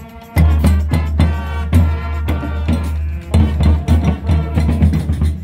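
Music with a drum beat over a deep, steady bass, cutting out for a moment at the start and coming back about a third of a second in.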